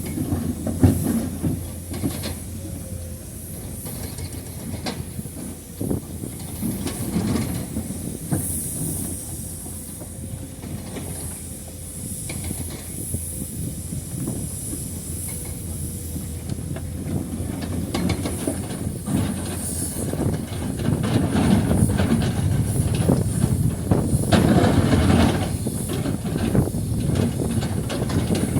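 Excavator's diesel engine running under load with a steady hiss, punctuated by repeated clanks and knocks, growing louder about two-thirds of the way through.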